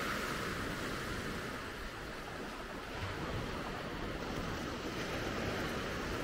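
Ocean surf washing steadily onto the beach.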